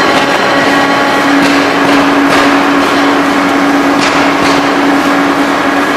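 Skew rolling machine running with a red-hot steel bar in its rolls: a loud, steady mechanical noise with a steady hum and a few sharp knocks.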